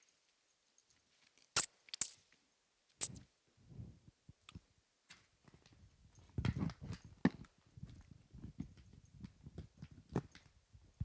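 A person chewing and biting on duck feet, with a few sharp clicks early on and a louder stretch of chewing about six seconds in.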